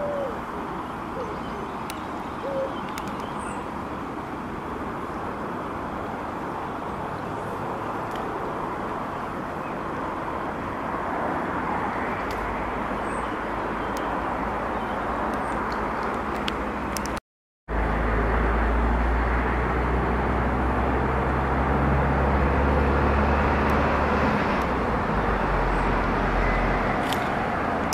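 Steady outdoor background noise with no voices, joined about halfway by a low rumble that grows stronger after a brief cut-out in the sound.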